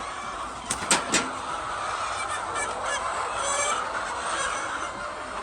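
A flock of chickens calling together, a dense continuous din of many birds at once, with three sharp clicks about a second in.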